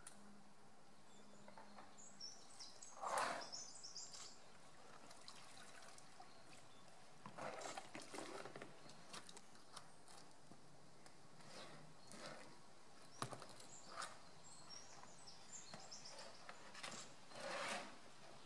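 Faint splashing and sloshing as a polar bear noses and paws a plastic object in shallow pool water, in three short bouts about three, eight and seventeen seconds in, with a few light knocks between. Faint high chirps sit behind it.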